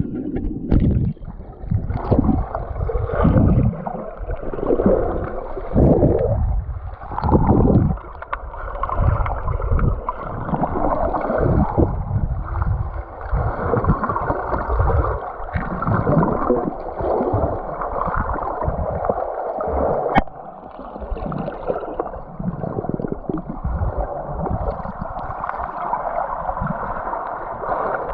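River water sloshing and gurgling against an action camera held underwater, heard muffled through its waterproof housing as an uneven, deep rumbling wash with almost no high sound. There is a single sharp click about two-thirds of the way through.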